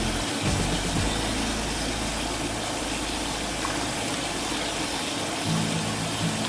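Steady rushing noise like flowing or pumped water, with a low hum in the first half, under background music that fades out and returns near the end.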